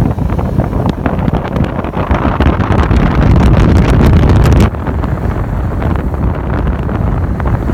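Heavy wind buffeting on the microphone over the running noise of a 4x4 driving on beach sand. The noise drops abruptly a little over halfway through.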